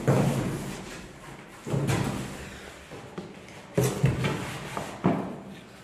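Four hollow plastic knocks and thuds, about one and a half seconds apart, with a few lighter clicks between. They come from a ride-on toy car's plastic spare wheel being pushed and knocked into place on the car's hollow plastic rear body.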